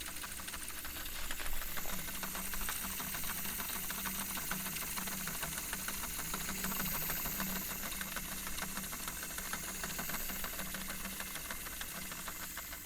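Tape recorder rewinding the tape at speed: a steady motor whir with a fast, fluttering rattle and tape hiss.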